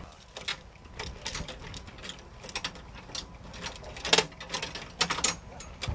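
A run of irregular sharp clicks and ticks, the loudest a little after four seconds in.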